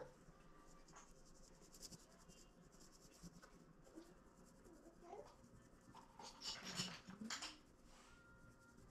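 Near silence: room tone, with a brief spell of faint scratching about six to seven and a half seconds in.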